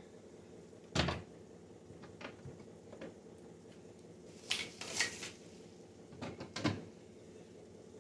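Jars and containers being moved around on refrigerator shelves: a loud knock about a second in, a few lighter taps, then clattering scrapes around the middle and again near seven seconds, over a steady low hum.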